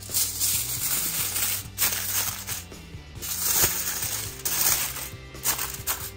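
Aluminium foil crinkling and rustling in a string of bursts as it is folded and crimped shut around a whole fish, over background music.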